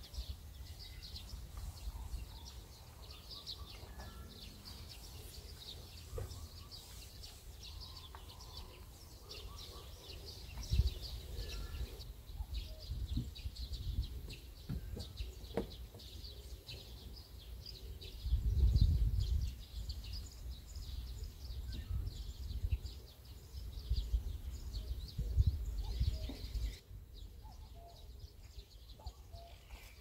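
Small birds chirping and twittering around a flooded rice paddy, a dense run of short, high calls that thins out near the end. Low rumbles come and go underneath, the loudest about 19 seconds in.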